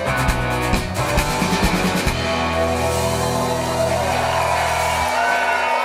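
Live rock band playing the closing bars of a song: guitars and drum kit hitting the final chords, then a last chord left ringing until the bass stops about five seconds in, with the crowd beginning to cheer near the end.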